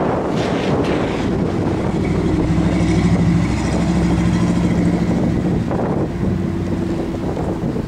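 Pontoon boat's outboard motor idling steadily, a low even hum, with rustling handling noise over it.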